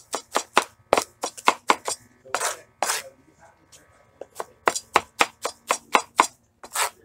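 A knife rough-chopping diced red onion on a plastic cutting board, in quick strikes about four a second. A little past two seconds in, the strikes pause for two longer strokes, and about four seconds in the rapid chopping starts again.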